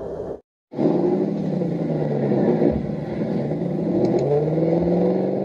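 Monster truck engine sound effect revving, its pitch rising and falling several times. It starts after a short break of silence near the start.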